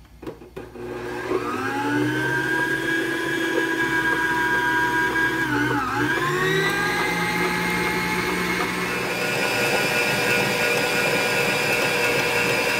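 Electric stand mixer switched on, its motor whining up to speed and then running steadily, wire whisk beating eggs and sugar in a steel bowl until the mixture doubles in volume. The pitch dips briefly about six seconds in and recovers.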